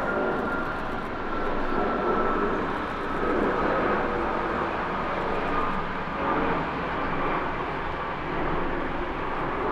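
Jet airliner engines passing, a continuous rush of engine noise with a whine that slowly falls in pitch.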